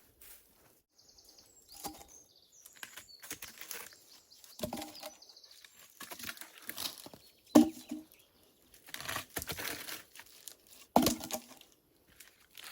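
Dry vegetation rustling and crunching as it is handled, with a few sharp knocks; the loudest come about seven and a half and eleven seconds in. A few short bird chirps sound in the first few seconds.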